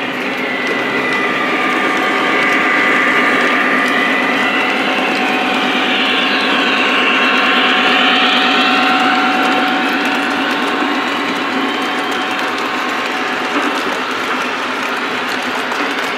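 Lionel O gauge model train, BNSF SD70MAC diesel locomotives pulling a string of tank cars: a steady mechanical whir of motors and gears with a fast, even rattle of wheels on the track. It grows louder toward the middle and eases off later.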